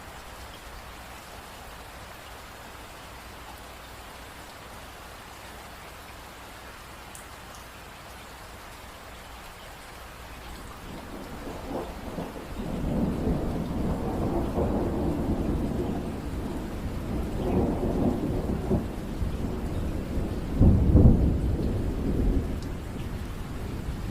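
Steady rain falling, joined about halfway through by a long rolling rumble of thunder that swells several times and peaks with a loud crack-like surge near the end.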